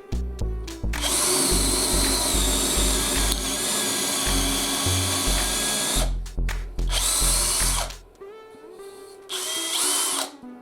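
Bosch GSB 18V-50 cordless drill motor running with no load: one long run of about five seconds, then two short bursts. Background music with a steady beat plays underneath.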